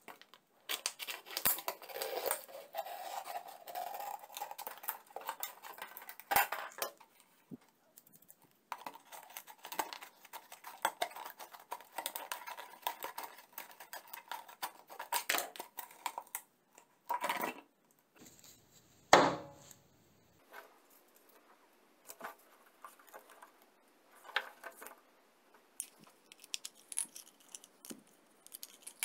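Hand cutting of a plastic bottle: a snap-off utility knife scraping and crackling through the plastic, then scissors snipping it, with scattered clicks of tools and plastic. One sharp, loud knock comes about two-thirds of the way through, and only light clicks follow it.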